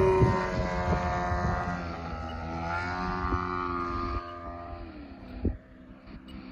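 Hangar 9 Carbon Cub FX-3 radio-controlled model plane flying past, its motor and propeller droning steadily. The drone is loudest at first, drops in pitch about two seconds in and again about five seconds in, and fades as the plane flies away.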